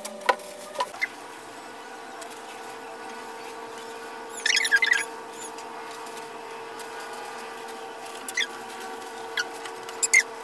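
Squeaks and sharp clicks of plastic-gloved hands working hair dye through wet hair, with a cluster of high, quick squeaks about halfway through, over a steady hum.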